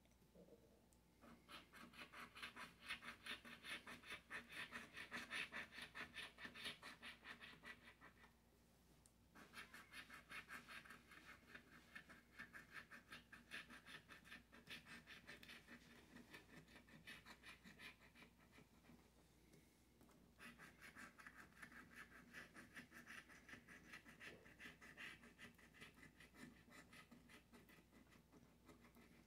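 A scratch-off lottery ticket's latex coating being scratched off in rapid repeated strokes, in three long spells broken by two short pauses.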